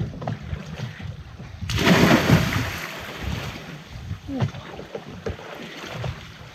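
A person jumping off a boat into the sea: one loud splash about two seconds in, followed by water sloshing around the swimmers.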